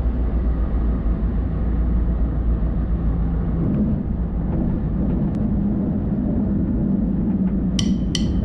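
Flight Design CTLS light aircraft's Rotax 912 ULS engine and propeller running steadily as the plane rolls along a grass runway, a continuous low rumble. Plucked guitar music starts near the end.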